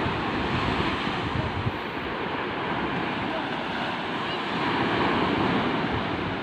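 Sea waves washing onto the shore, a steady rushing that swells a little louder about five seconds in, with wind buffeting the microphone.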